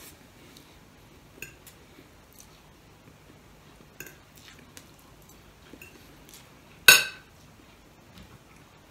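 Fork and spoon clicking and scraping against a plate while eating: a series of light scattered clinks, then one much louder ringing clink about seven seconds in.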